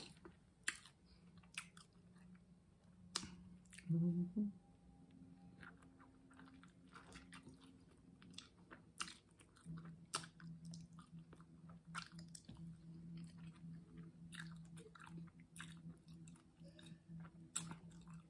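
Close-up chewing and biting of a BBQ Polish sausage sandwich: soft bites into the bun and sausage with many short wet mouth clicks and smacks. A brief hum of voice comes about four seconds in.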